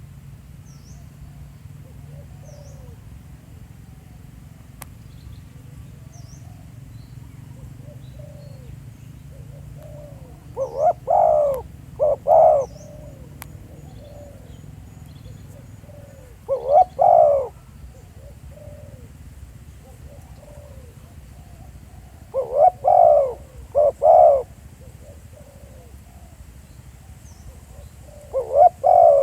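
A spotted dove decoy cooing in short phrases of two to four low notes, repeated every five or six seconds. Fainter dove coos sound between the phrases, and small birds chirp high and faintly.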